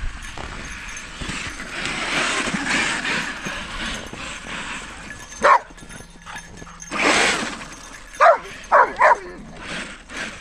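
Dog barking in short, sharp yips, about five times in the second half, while chasing a radio-controlled truck in play. Before the barks there is a few seconds of rushing noise.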